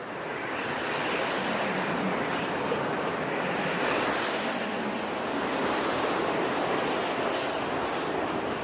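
A steady rushing noise with no tone or beat in it, swelling in at the start and fading near the end: a sound effect laid under an animated title sequence.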